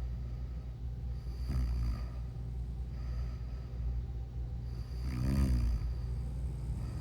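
A person snoring in sleep, with a breath about every two seconds over a steady low hum. The loudest is a rattling snore a little past five seconds in.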